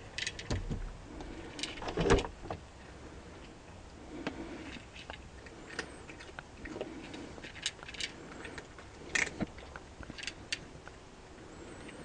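Plastic Catisfactions cat-treat pouch crinkling and rustling as it is handled, a string of irregular crackles and clicks, louder about two seconds in and again near nine seconds.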